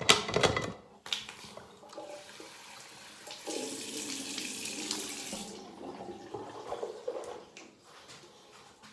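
Tap water running into a bathroom sink: a loud splash right at the start, then a steady rush of water for about two seconds, from about three and a half seconds in, during rinsing at the basin while caring for the teeth.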